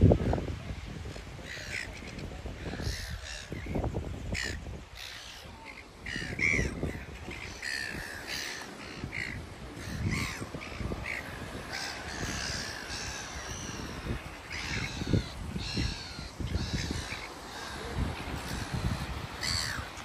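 Silver gulls calling over and over, many short cries one after another, over a low rumbling background. A loud thump right at the start.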